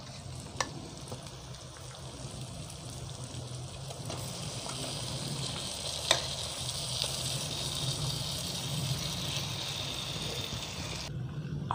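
Spice masala sizzling in a hot wok as pieces of spice-marinated mutton are spooned in from a steel bowl; the sizzle grows brighter and louder about halfway through as more meat hits the oil. A couple of sharp clinks of the spoon come near the start and again midway.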